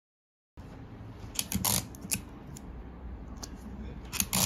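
Large printed paper pattern sheets being handled and smoothed on a table: short paper rustles and crinkles over a low room hum, with louder ones about a second and a half in and again near the end. The sound cuts in abruptly about half a second in.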